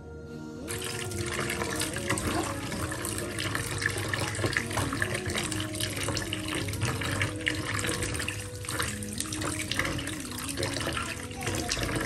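Kitchen tap running into a plastic container of sliced potatoes in a stainless steel sink, the water splashing as a hand swishes the slices to rinse them; the flow starts about a second in. Background music plays underneath.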